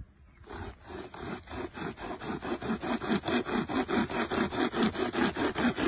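A bicycle chain pulled back and forth around a small tree trunk, sawing through the wood like a rope saw. It rasps in quick, even strokes, about five a second, starting just under a second in.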